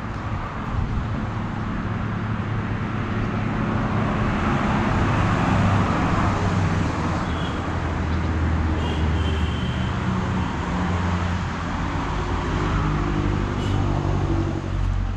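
Road traffic: a motor vehicle's engine running close by, its low hum swelling louder a few seconds in and holding. Two brief high chirps come near the middle.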